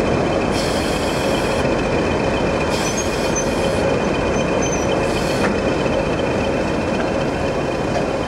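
English Electric Class 20 diesel locomotive engine running steadily at low speed, a continuous drone with a steady high whine on top.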